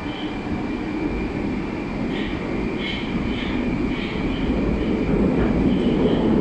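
Moscow metro 81-765 "Moskva" train running, heard from inside the carriage: a steady rumble of wheels and running gear that grows steadily louder. A faint high steady whine and short high chirps sound through it.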